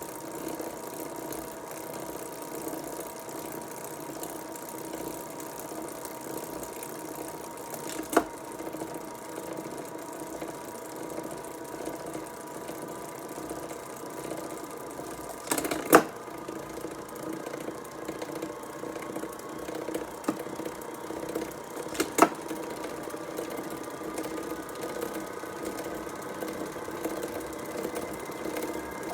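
SRAM Force AXS bicycle drivetrain turning steadily, a whirring hum from chain and gears with a few sharp clicks at irregular intervals: the noise problem under investigation.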